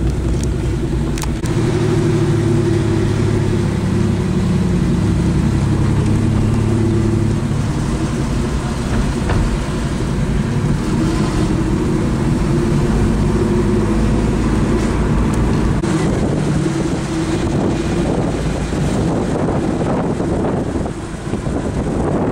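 Car engine and road noise heard from inside the cabin while driving, the engine note shifting in pitch a few times. In the last few seconds the engine hum fades into a rougher rushing noise.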